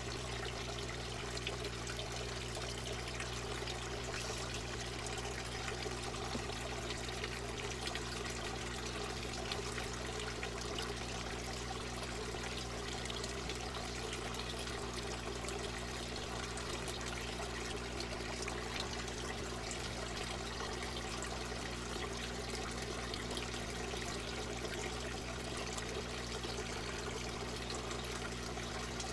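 Water trickling steadily through an aquaponics system, with a steady low hum underneath.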